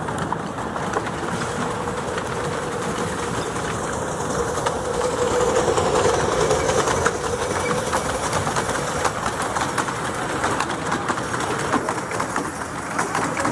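Miniature railway train's carriages rolling past on curved track, wheels clicking rapidly over the rail joints, with a steady wheel squeal that grows louder around the middle.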